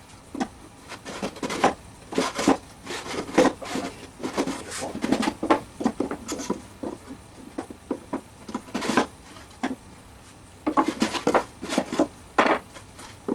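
Small wooden drawers being slid in and out of a wooden tool box: irregular rubbing and knocking of wood on wood, with a short lull a little past the middle.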